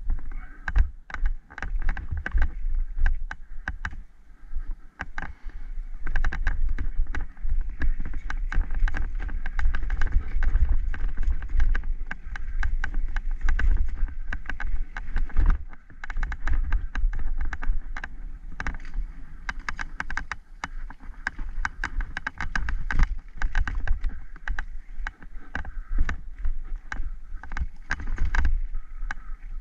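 Downhill mountain bike ridden fast over a rough dirt forest singletrack: a constant, uneven rattle and clatter of the bike and mount jolting over roots and bumps, over a heavy rumble of wind on the microphone.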